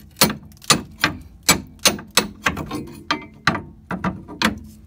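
Hammer tapping on steel in a 2008 Honda CR-V's rear suspension to work the rear strut assembly loose: sharp taps, about a dozen at roughly two or three a second.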